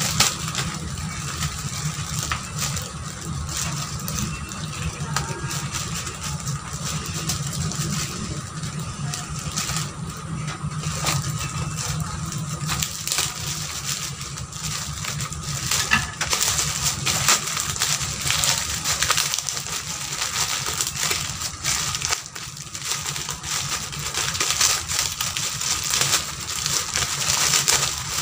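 Thin plastic bag wrapping crinkling and crackling as it is snipped with scissors and pulled apart by hand, growing busier about halfway through. A steady low hum runs underneath.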